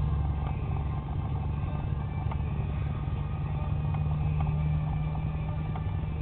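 Car driving at motorway speed, heard from inside the cabin: a steady low drone of engine and tyre noise.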